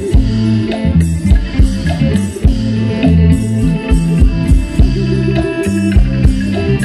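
Live music from an Isan pong lang band: drums keeping a steady beat under a bass line and plucked strings.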